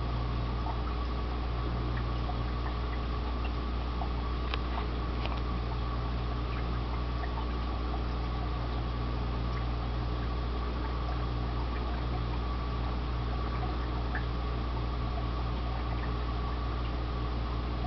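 Freshwater aquarium equipment running: a steady low hum with a constant trickle of water and a rising stream of air bubbles, with scattered small ticks and pops.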